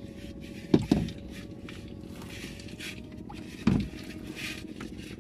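A fisherman handling a wet nylon trap net over a bucket in a wooden boat: soft rustling, with three dull knocks, two close together just under a second in and one near four seconds, over a steady low hum.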